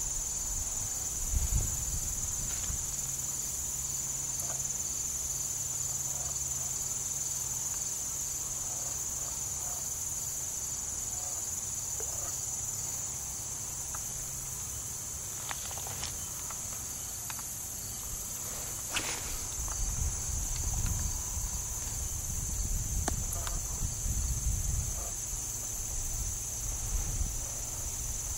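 Steady high-pitched insect chorus, a continuous trill. Under it runs a low rumble that swells in the second half, with a few short clicks near the middle.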